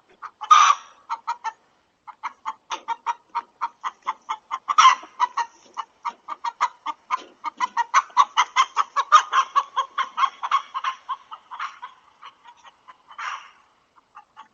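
Chickens clucking in a rapid, steady string of short calls, several a second, broken by a few louder squawks about half a second in, near the middle and near the end; the fast repeated clucking is the cackle chickens give in alarm. The calls thin out over the last few seconds.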